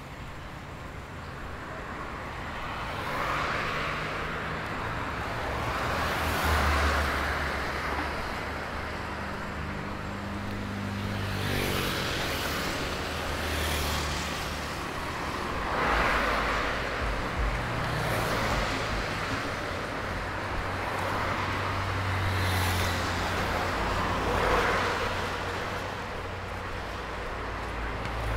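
City street traffic: several cars passing one after another over a steady low engine hum, with one engine revving up about twelve seconds in.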